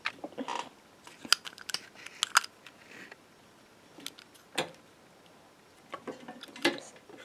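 Scattered small clicks and taps of hard plastic as a toy figure and its small yellow plastic accessory are handled and pushed together.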